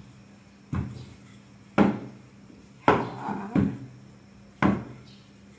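Wooden rolling pin knocking against a wooden board while puri dough is rolled out: five sharp knocks about a second apart.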